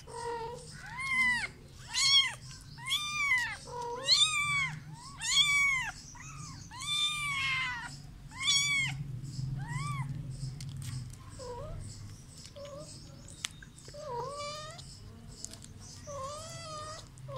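A cat meowing over and over, with high calls that rise and fall about once a second. In the second half the calls turn fainter, lower and shorter.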